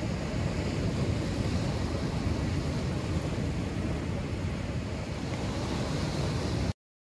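Rough sea surf surging and breaking against a rocky shore, with wind rumbling on the microphone. It stops abruptly near the end.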